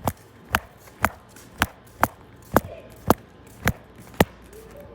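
Footsteps on hard ground: about nine sharp, even steps, roughly two a second.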